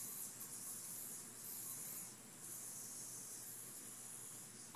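Yo-yo spinning on its string during a string trick, a steady high hiss that dips briefly about two seconds in and fades near the end.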